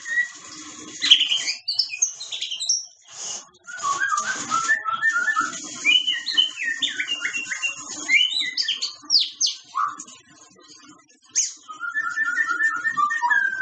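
White-rumped shama (murai batu) singing: a varied run of clear whistles, fast repeated notes and harsh rasping phrases, broken by a short pause about ten seconds in.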